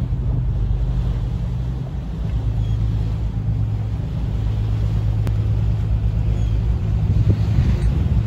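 Boat engine running with a steady low hum, under wind and water noise.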